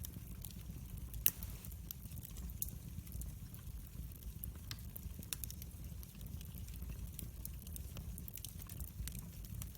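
Wood fire crackling: irregular sharp pops and snaps, the loudest about a second in, over a steady low rumble.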